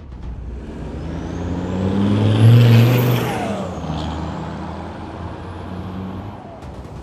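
Turbo-diesel engine of a diesel-swapped Jeep Cherokee XJ driving past. The engine note swells to its loudest about two and a half seconds in, then fades as it moves away. A high whistle rises and then falls in pitch as it passes.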